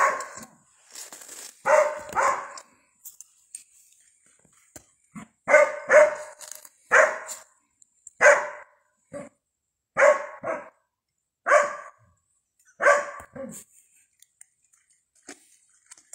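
Cadaver dog barking, about a dozen loud barks, singly and in pairs with short pauses between. The handler takes the barking as the dog telling him there is scent here, too diffused for it to pinpoint.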